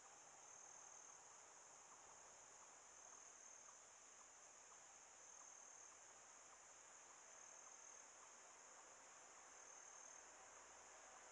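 Near silence with a faint, steady high-pitched insect chorus, swelling briefly about every two seconds.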